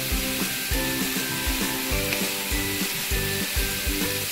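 Pork belly and a chicken leg quarter sizzling in a ridged grill pan, a steady hiss under background music with a steady beat.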